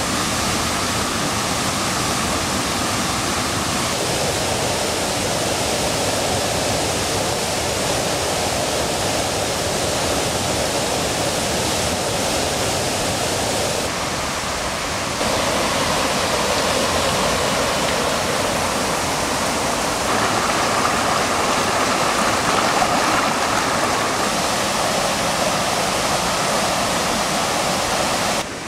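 Mountain stream rushing over boulders in small cascades: a steady, loud rush of water. It shifts a little in tone and level a few times, with a short dip about fourteen seconds in.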